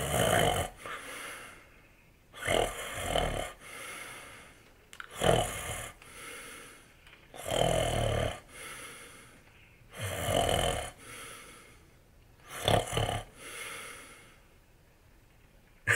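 A man snoring, six snores about two and a half seconds apart, each louder breath in followed by a softer breath out.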